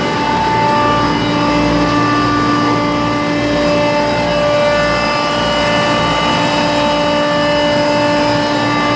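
Chiller running: a steady machinery noise with several steady whining tones layered on top. Only its second refrigerant circuit is running; circuit 1 is locked out for a suspected refrigerant leak.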